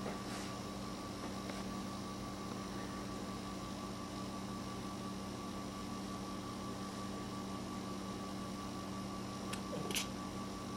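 Steady electrical hum with several even tones, and a brief, sharp high-pitched sound about ten seconds in.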